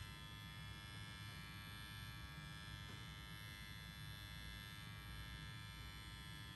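A handheld Dremel rotary tool, used as a dog-nail grinder, running steadily: an even motor whine with many overtones, without change.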